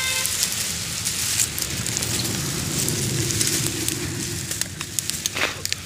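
Dry reed stems and brush rustling and crackling close to the microphone as they are pushed aside, with many small snaps and a low murmur underneath.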